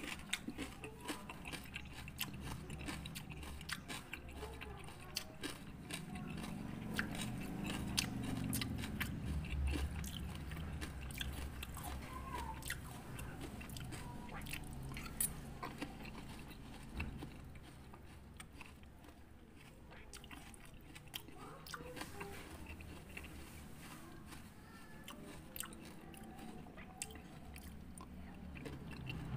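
A person chewing and crunching mouthfuls of raw-fruit rujak, with many short clicks of a metal spoon against the fruit and the bowl as it scoops.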